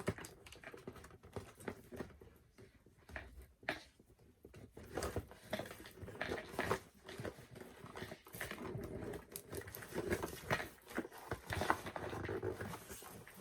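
Irregular clicks, taps and rustles of a doll's plastic and cardboard packaging being handled and opened, growing busier in the second half.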